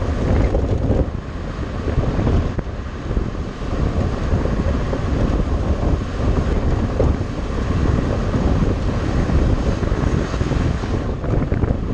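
Wind buffeting the microphone of a camera on a moving open off-road vehicle, over the noise of its engine and tyres on a dirt track.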